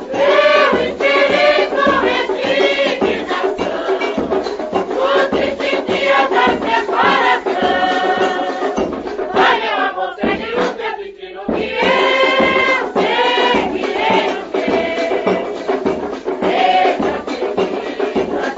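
Samba de terreiro from an old LP recording: voices singing the melody over light, steady percussion ticks, with a brief break in the singing about ten seconds in.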